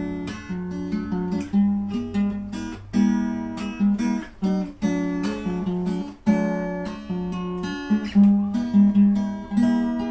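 Background acoustic guitar music, notes picked at about two a second.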